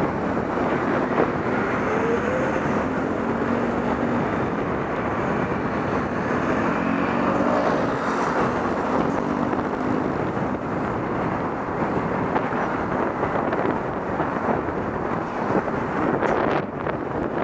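Road traffic heard from a moving bicycle, a steady rush of noise throughout. Small motor-scooter engines pass close in the first half, their hum rising and falling as they go by.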